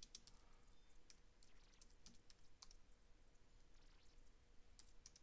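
Faint, irregular keystrokes on a computer keyboard as a terminal command is typed.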